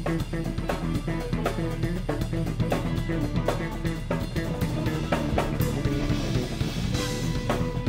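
Background music with a steady drum-kit beat over bass.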